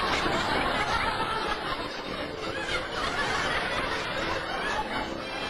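People laughing and chuckling, steadily throughout.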